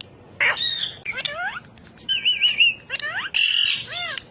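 Parrot calling: a string of short, falling whistled calls, a quick warbling trill in the middle, and a harsh screech near the end.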